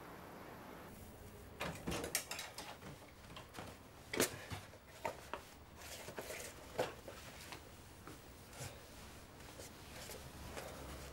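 A run of irregular knocks, clicks and clatters from a person moving about near a door and sitting down. It starts about a second and a half in, is loudest about four seconds in, and thins out towards the end.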